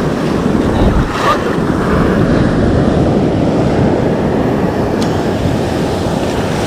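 Sea surf breaking and foaming close around the camera, a loud, steady rush of water, with wind buffeting the microphone.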